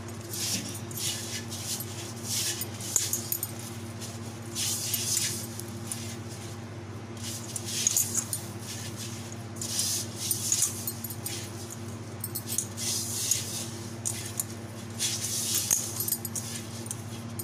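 Bangles on the wrist jingling and dough squishing as it is kneaded by hand in a steel bowl, in repeated bursts roughly every second. A steady low hum runs underneath.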